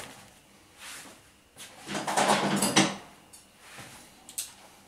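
Handling noise: a plastic bag and paper rustling as a coiled corrugated plastic dishwasher hose is moved about on them, with a longer stretch of rustling about two seconds in and a light tick near the end.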